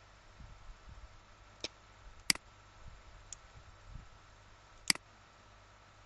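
Computer mouse clicks: four short sharp clicks, two of them loud, one about two seconds in and one near the end, over a few soft low bumps and a faint steady hum.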